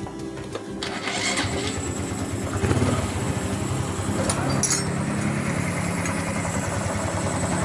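Honda Supra X 125 Fi's single-cylinder four-stroke engine starting about a second in, then running steadily at idle. The engine has just been rebuilt with a new connecting rod.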